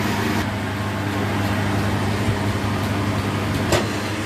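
A steady mechanical hum from a running machine, with a single sharp click near the end.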